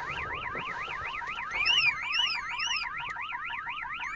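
StarLine B9 car alarm siren sounding continuously: a fast warbling wail sweeping up and down about four times a second. The alarm went off during an attempt to put it into fob-programming mode, which has not worked.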